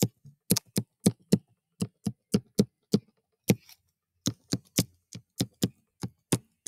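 Sharp, short taps of a stylus on a touchscreen as handwriting strokes are made. They come about three a second, with a brief pause past the middle.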